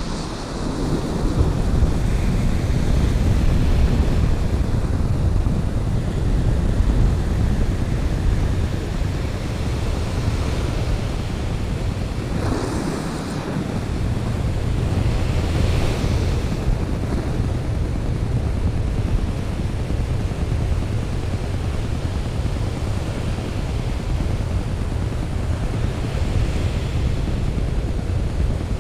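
Ocean surf breaking on a sandy beach, with heavy wind buffeting on the microphone. Waves wash up more loudly a few times: about twelve and sixteen seconds in, and near the end.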